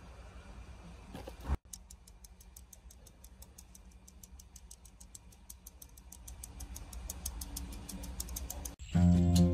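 A fine-mesh sieve tapped in a quick, even run of light ticks as powdered sugar is dusted over a chiffon cake, over a low rumble. Cheerful mandolin music comes in loudly near the end.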